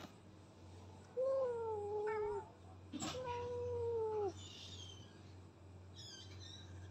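Cats yowling: two long, drawn-out calls, each just over a second and sagging slightly in pitch toward the end, followed near the end by a short high chirp.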